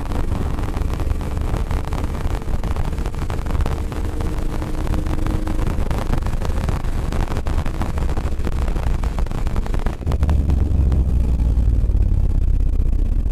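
Car driving at track speed: engine running under load with heavy low road and wind rumble. About ten seconds in the sound dips briefly, then the low rumble grows louder.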